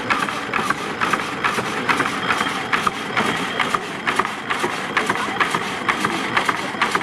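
Sweep-driven drag saw running: its iron gearing, flywheel and linkage clatter in a fast, even rhythm of several clicks a second.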